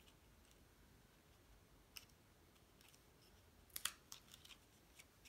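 Mostly near silence, with a few faint clicks and ticks of cardstock paper pieces being handled and pressed down; the sharpest short cluster of clicks comes a little under four seconds in.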